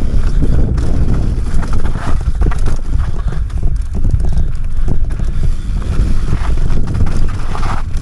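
Mountain bike descending a rough enduro trail at speed: tyres and frame rattling with many small knocks, under heavy wind buffeting on the microphone.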